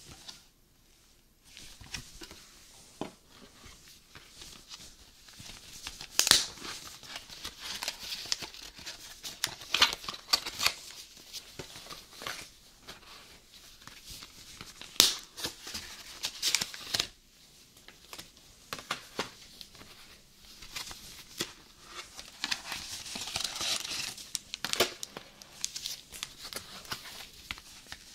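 Cardboard and paper packaging being handled and opened by gloved hands: a McDonald's Happy Meal box unfolded and a card-pack sleeve worked open. The sound is an irregular run of crinkling and rustling with several sharp tearing snaps.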